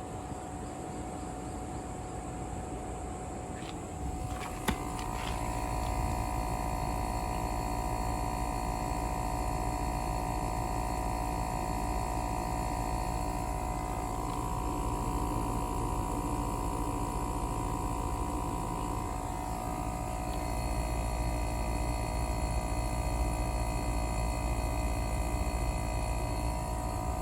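Converted Samsung air conditioner running with a steady hum and whine. A click comes about five seconds in, and then it runs louder as the unit's motors come up to full running.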